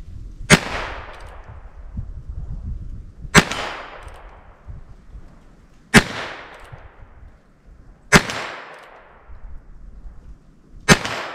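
Five shots from a Heritage Rough Rider single-action .22 revolver firing .22 Long cartridges, spaced about two to three seconds apart, each crack trailing off in a short echo.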